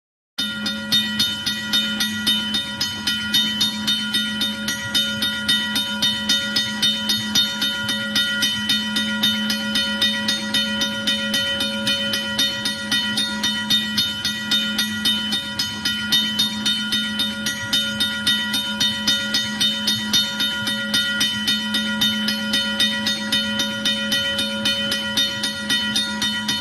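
A steady mechanical sound with a regular clatter, a few beats a second, over a constant hum and several held tones, running without change.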